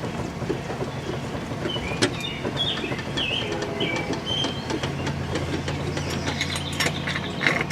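Car jack being cranked down to lower the car onto its spare tyre: a run of light metallic clicks and rattles, denser near the end, over a steady low hum, with birds chirping.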